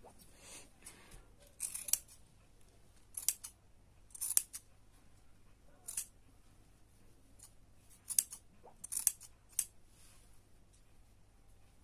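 Metal scissors snipping, trimming the yarn strands of a pom-pom: about eight short snips at irregular intervals, two of them in quick succession around a second and a half in.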